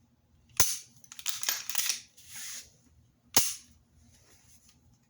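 Sharp metallic clacks of a Glock 45 pistol being handled: two loud clacks about three seconds apart, with a quick flurry of smaller clicks and rattles between them.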